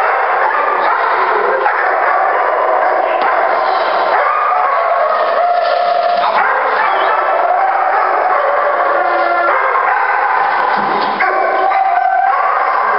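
Shepherd-type working dog barking and yelping excitedly with no pauses, worked up during bite training.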